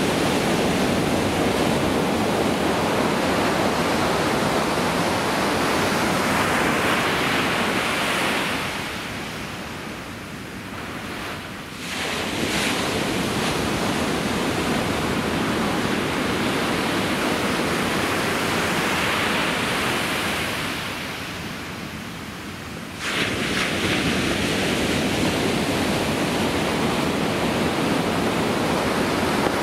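Ocean surf breaking and washing up a sandy beach, a steady rush of water. It eases twice, about ten and about twenty-two seconds in, and comes back each time with the next breaking wave, the second time suddenly.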